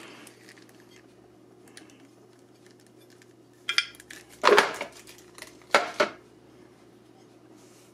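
Flat steel mounting brackets from a mount kit clinking against each other and being set down on a desk: three sharp metallic clatters a little past halfway, the middle one the loudest.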